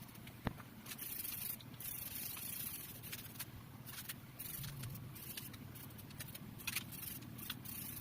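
Hand-work noises: a sharp click about half a second in, then irregular scraping or brushing strokes with small clicks and rattles.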